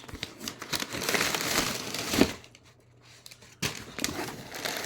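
Packaging wrap crinkling and rustling as it is pulled open by hand. It comes in two spells, with a short lull between them, and the second starts near the end.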